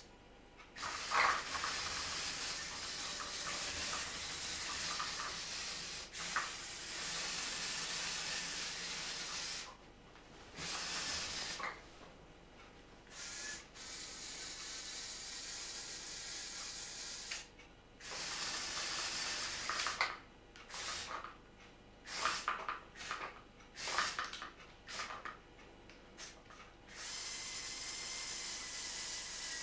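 Small electric motors and plastic gearing of a remote-controlled Lego Technic tracked loader whirring as it drives on its tracks, running in spells of a few seconds and stopping and starting, with many short jabs of the controls in the second half.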